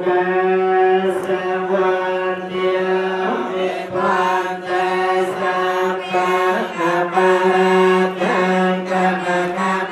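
A group of Khmer Buddhist monks chanting together in unison, holding one steady note, amplified through a microphone.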